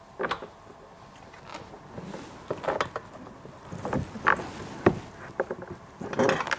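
Irregular knocks, clicks and rattles of bolts being pushed through the wheelbarrow's drum into its tubular metal frame and fitted finger tight by hand, with a busier cluster of knocks near the end.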